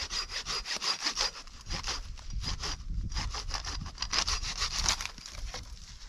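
Hand saw cutting dry dead wood for firewood, in quick even back-and-forth strokes of about four or five a second, with short pauses between runs.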